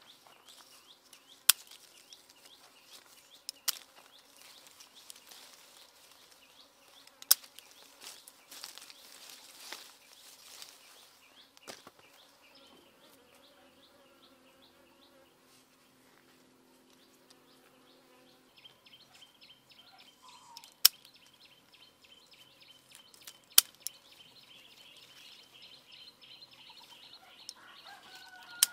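Scissors snipping through lime stems: a few sharp, scattered snips. Insects buzz steadily behind them, more strongly in the second half, and there is some leaf rustling.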